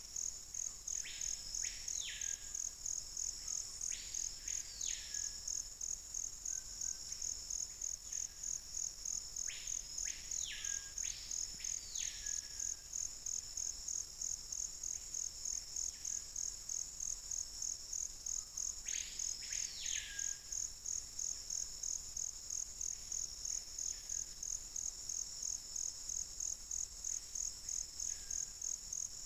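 A high insect trill pulsing rapidly and steadily, with several arching whistled calls, mostly in pairs, sweeping up and then down again at irregular intervals.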